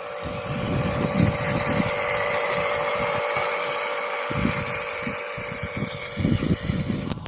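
Electric motors and gearboxes of a Huina radio-controlled construction model whirring steadily with a high whine, over an irregular low rumble that comes and goes.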